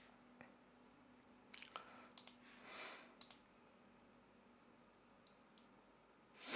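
Near silence broken by a few faint, sharp clicks, with a soft breath about three seconds in and a loud sniff at the very end.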